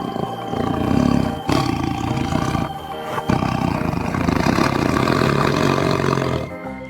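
Tiger roaring, in about three long, rough roars over a steady background tune.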